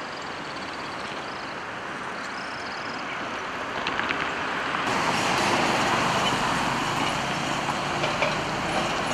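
Road traffic noise, growing louder about four seconds in as a vehicle goes by.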